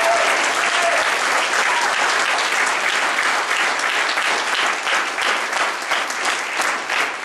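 Audience applauding, with a voice calling out at the start. The clapping thins to more scattered, separate claps near the end.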